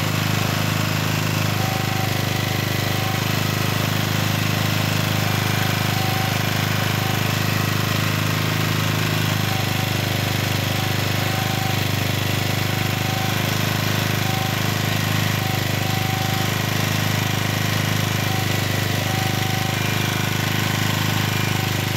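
Excell HD1500 portable generator's four-stroke Mitsubishi engine running at a steady speed.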